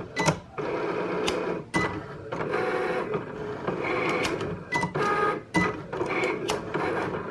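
Electronic craft cutting machine cutting out letters: its motors whir in short starts and stops, the pitch changing from one move to the next, with clicks between moves.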